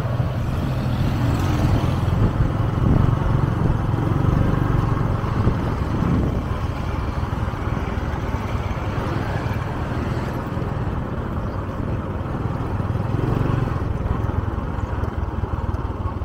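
A vehicle engine running steadily with road and traffic noise.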